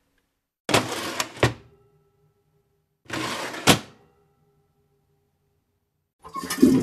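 Two short clattering knocks, each ending in a sharp click, with a silent gap between them; near the end a toilet starts to flush with a rush of water.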